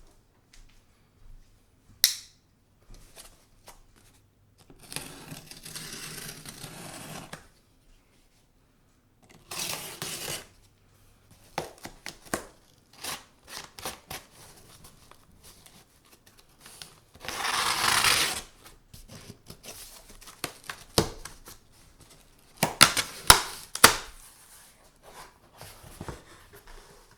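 A cardboard shipping box being opened by hand: packing tape cut and torn, with rustling of cardboard and packing material. Two longer tearing stretches of about two seconds are scattered among sharp clicks and knocks, with a cluster of clicks near the end.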